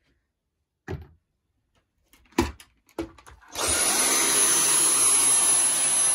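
A few knocks, then a Dyson cordless stick vacuum with a motorised brush head is switched on about three and a half seconds in and runs steadily, with a thin high whine over its airflow noise.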